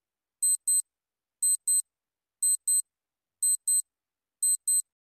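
Countdown-timer clock sound effect: a high-pitched double tick once a second, five times.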